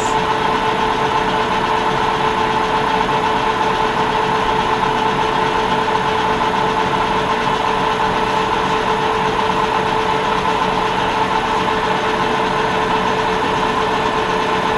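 Metal lathe running steadily under power feed, taking a fine cut on brass hex stock at five thousandths of an inch per revolution. It is an even mechanical hum with two held tones.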